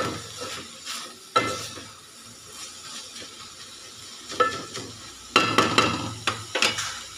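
Wooden spatula stirring a flat-bean curry in a metal pot, scraping and knocking against the pot's side with a short metallic ring on each knock: single strokes at first, then a quick run of knocks near the end. A faint frying sizzle lies between the strokes.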